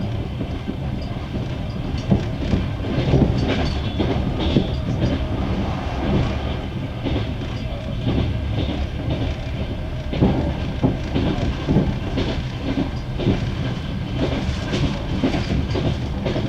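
Passenger train wheels clattering over rail joints, heard from inside a moving carriage: a steady rumble broken by repeated sharp clacks of the wheelsets.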